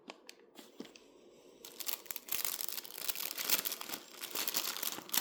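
A few faint clicks, then from about two seconds in the continuous crinkling of a packaging bag of kit parts being handled.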